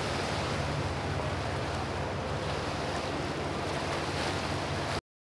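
Rough, churning canal water and a passing motorboat's engine running, with wind on the microphone. The sound cuts off abruptly near the end.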